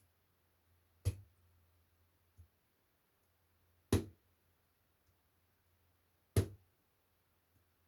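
Three sharp knocks, about two to three seconds apart, each dying away quickly, over a faint steady low hum.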